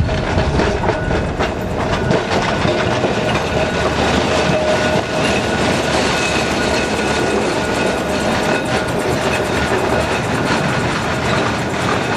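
Blackpool single-deck electric tram running past close by on street track: a steady rumble of steel wheels on the rails, with a faint steady whine running through it.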